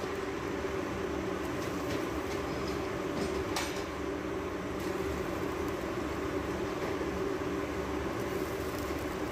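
Hot oil and rendered mutton fat sizzling steadily in a large metal cooking pot as pieces of mutton are dropped in, over a steady low rushing noise.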